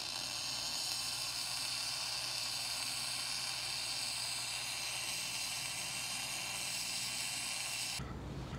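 Electric welding arc sizzling steadily through one continuous bead on the boat's metal plate, cutting off about eight seconds in.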